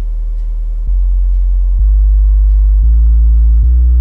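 Wharfedale Pro D-617 12-inch bass driver, out of its cabinet, playing low test tones in free air. The tones change in steps about once a second, each a little higher and louder than the last.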